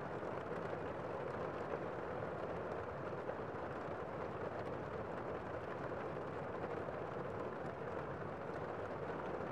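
Gentle rain falling steadily, an even unbroken hiss with no separate drops standing out.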